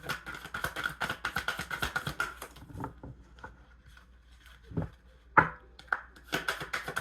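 Tarot cards being shuffled by hand: quick runs of light flicking clicks, pausing in the middle, with two louder taps about five seconds in, the second the loudest.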